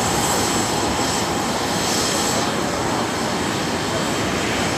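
Business-jet turbofan engines running steadily at taxi power: an even rushing sound with a thin high whine.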